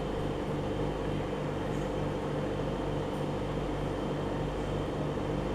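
Aquarium pump running with a steady hum and whir.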